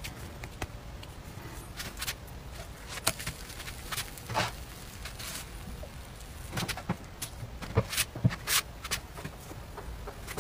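Scattered light clicks and taps from an electric crepe maker and a thin crepe being handled on a wooden board, with a few sharper knocks about eight seconds in.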